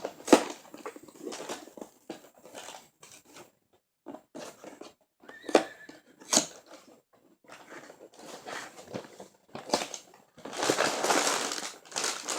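Packaging handled in short crinkles, rustles and clicks, then, about ten seconds in, a second or two of dry Reese's Puffs Bunnies cereal pouring steadily into a bowl.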